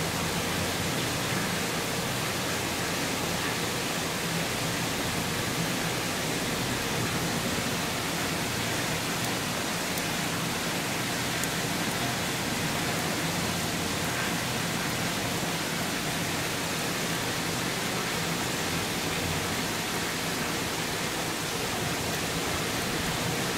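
Torrential rain pouring down in a steady, even hiss.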